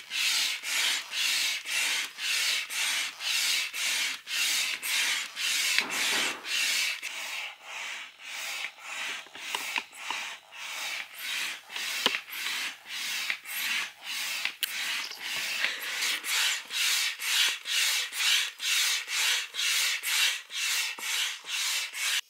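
Aqua Marina hand pump worked up and down to inflate an inflatable kayak: a steady rhythm of rushing-air strokes, about two a second.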